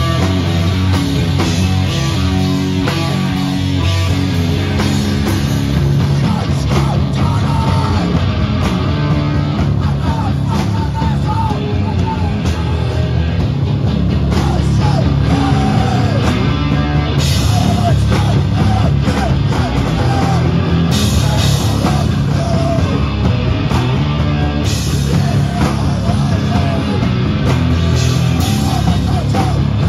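A heavy metal band playing live and loud: distorted electric guitars and a drum kit.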